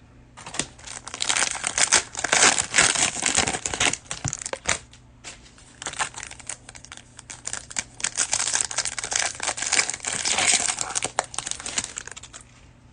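Crinkling and tearing of a cellophane trading-card pack wrapper as it is opened, with a short lull about five seconds in.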